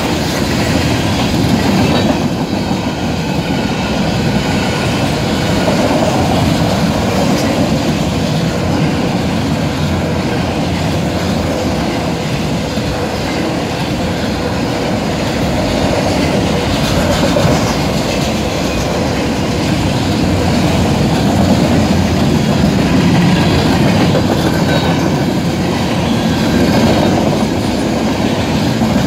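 Freight train cars rolling past at a road crossing: a steady rumble with the clickety-clack of wheels over the rail joints, and the crossing bell ringing behind it.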